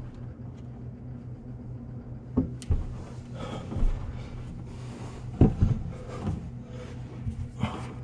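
Scattered knocks, bumps and rustles of handling around a kitchen sink cabinet as the new faucet is worked into place, over a steady low hum.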